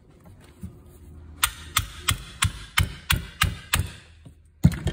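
Hammer tapping on a small RS550 DC motor's crimped steel can to knock the brush end cap loose: a run of about eight sharp taps, roughly three a second, then two louder ones near the end.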